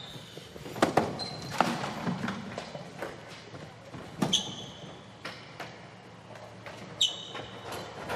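Irregular sharp knocks and thuds inside a television production truck, about seven in all, a few followed by a brief high ringing tone, over a low steady hum.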